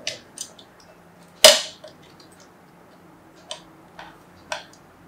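Sharp clicks and taps of the small plastic parts of an infrared thermometer being pried apart by hand during disassembly. There is one louder snap about a second and a half in, then scattered lighter clicks.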